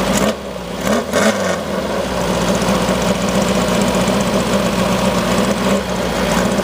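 Rail buggy's engine running under way at a fairly steady pitch, easing off briefly about half a second in and then holding steady; the engine is still being broken in.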